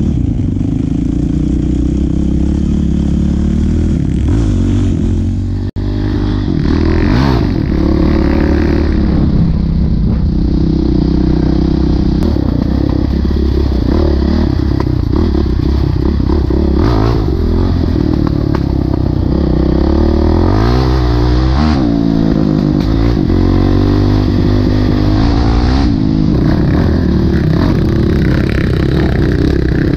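Honda CRF450X single-cylinder four-stroke dirt bike engine running under load, its revs rising and falling constantly, with clattering and scraping. The sound breaks off for an instant about six seconds in.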